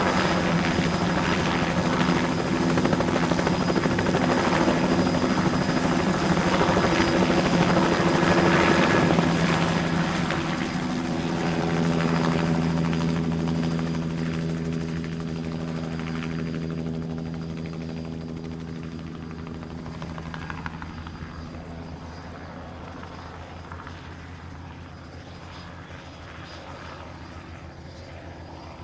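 Helicopter engine and rotor running with a steady hum, loud at first, then growing steadily fainter from about ten seconds in.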